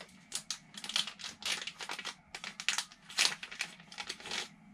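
Plastic zip-lock anti-static bag crinkling as it is handled and opened: a busy run of short, irregular crackles and rustles.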